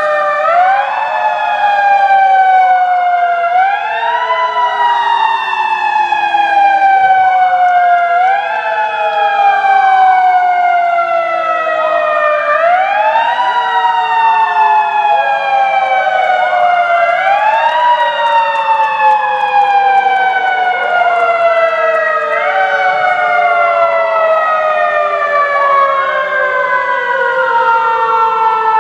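Several fire engine sirens wailing together, out of step with one another. Each one sweeps up quickly in pitch and falls away slowly, over and over, so the wails overlap.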